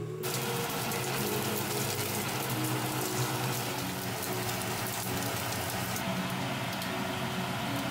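Thick-cut pork loin sizzling as it pan-fries in oil, the sizzle starting suddenly. About six seconds in it gives way to a slightly softer sizzle of cabbage stir-frying. Background music plays underneath.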